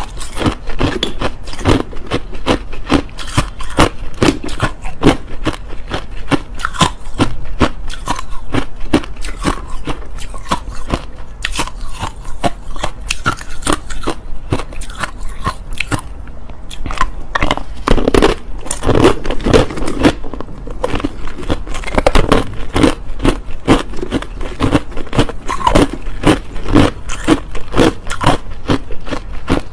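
Close-up chewing of hard crushed ice: a rapid, continuous run of sharp crunches and cracks as the ice is bitten and ground between the teeth.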